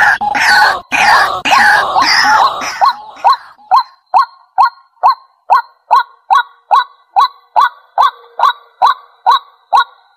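White-breasted waterhen calling: a few seconds of loud, harsh overlapping croaks, then a steady run of single short 'kwak' notes about two a second, which cuts off abruptly near the end.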